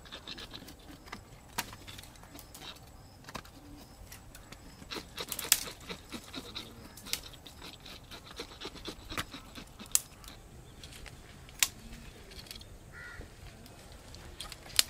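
Dry sticks being snapped by hand for a cooking fire: irregular sharp cracks, the loudest about five and a half, ten and eleven and a half seconds in and just at the end, with smaller clicks and rustling between.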